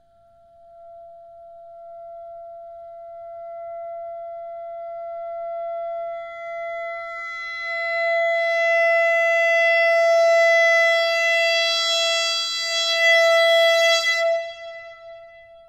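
Background music: a single long held note on a wind instrument, steady in pitch, swelling gradually louder and brighter for most of its length, then fading away near the end.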